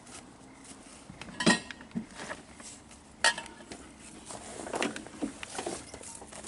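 Metal hand tools clinking and clicking as they are handled, a few scattered sharp clinks, the sharpest about a second and a half and three seconds in.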